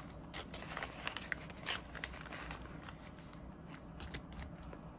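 Rustling, crinkling and light clicking of clear plastic cash envelopes in a ring binder and of paper bills being handled, with the envelopes flexed and a page flipped. The handling is busiest in the first two seconds and sparser after.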